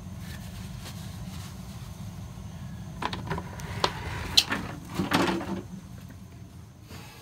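Handling clatter: a short run of knocks, clicks and rattles between about three and five and a half seconds in, the sharpest near the middle, as hands work a brass drain valve over a plastic bucket. A steady low hum runs underneath.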